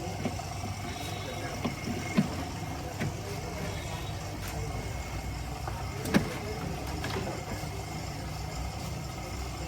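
Metal tools and parts clinking and knocking a few times during work on a Suzuki Cultus steering assembly, the loudest knock about six seconds in, over a steady low hum.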